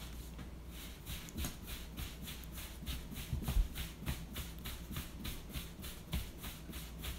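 Hands shaping a ball of sourdough dough on a floured wooden board: a quick, even run of soft rubbing and dragging strokes, with one low thump about three and a half seconds in. A steady low hum sits underneath.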